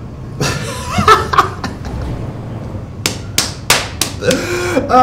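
Short bursts of voices, and about three seconds in, four sharp smacks in quick succession, roughly three a second.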